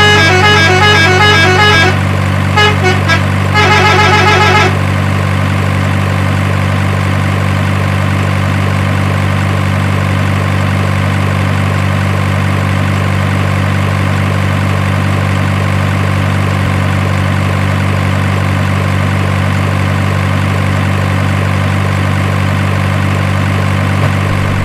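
Steady low drone of a truck engine, with rapid repeated horn toots over it for the first few seconds; then the engine drone goes on alone.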